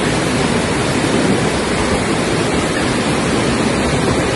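Floodwater rushing in a fast torrent down a street: a loud, steady rushing noise.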